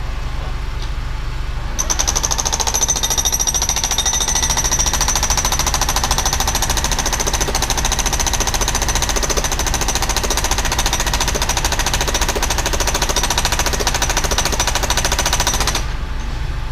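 Hydraulic breaker on an E32 mini excavator hammering into the ground in a rapid, steady rattle. It starts about two seconds in and stops shortly before the end, over the excavator's diesel engine running throughout.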